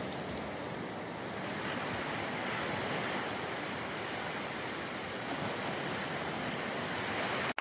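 Rough sea surf and wind making a steady rushing hiss that cuts off suddenly at the very end.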